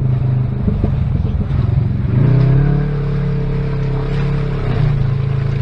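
Side-by-side UTV engine running under way on a dirt trail, with a steady engine note and light rattle. About two seconds in the engine note steps up to a higher pitch and holds, then drops back near the end.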